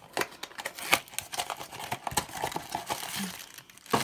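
Funko Mystery Mini blind box being opened by hand: the cardboard box is handled, then the black foil bag inside is crinkled and pulled open, in a run of crackles and sharp clicks. The loudest click comes about a second in, and another near the end.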